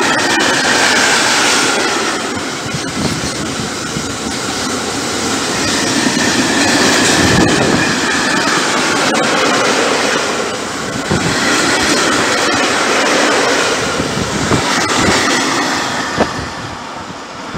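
Empty van-carrier freight wagons rolling past at speed, wheels clattering over the rail joints with a faint high whine at times. The noise falls away near the end as the last wagon goes by.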